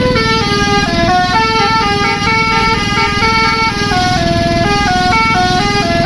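A bus's basuri multi-tone 'telolet' horn playing a quick tune of stepped notes, over a steady engine rumble.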